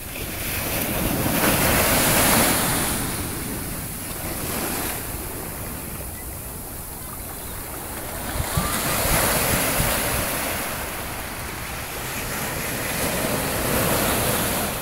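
Ocean surf breaking and washing up the beach, swelling up three times, with wind rumbling on the microphone.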